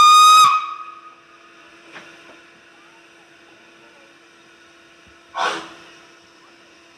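Narrow-gauge steam tank locomotive giving a short, loud whistle blast that stops about half a second in. Several seconds later comes a single exhaust chuff as it starts to pull away.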